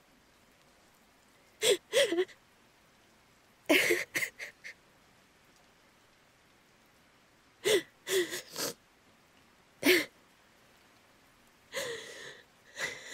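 A woman crying quietly: short, shaky sobs and sniffling breaths, two or three at a time, in five clusters a few seconds apart.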